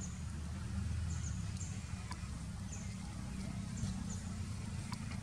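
Outdoor ambience: a steady low rumble, with short high chirps that fall slightly in pitch, repeating roughly every half second to a second.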